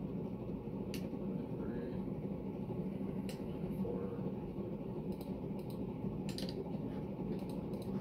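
Berni (Panama copy) ceiling fan running with a steady hum and scattered sharp ticks at uneven intervals. The fan's bearings are noisy, by the owners' account.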